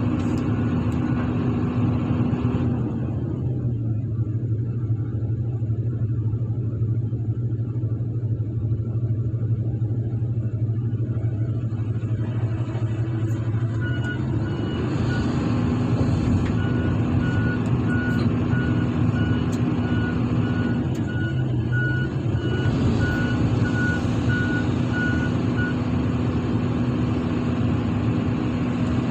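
Diesel engine of a single-drum road roller running close by. A reversing alarm beeps steadily from about halfway in and stops a few seconds before the end.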